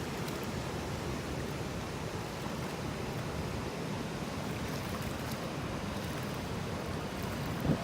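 Steady rushing noise of fast, high river water, with a brief bump near the end.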